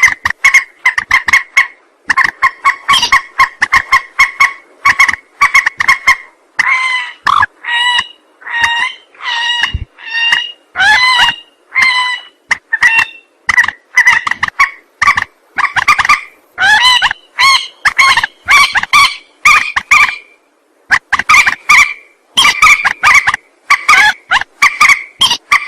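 Recorded call of the mandar, a rail, played as a bird-trapping lure. It is a fast, unbroken run of short, loud calls, about two to three a second, some rising in pitch, with one brief pause near the end.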